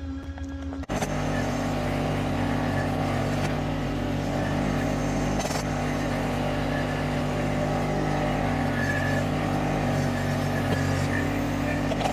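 An engine running steadily at an even speed, coming in abruptly about a second in.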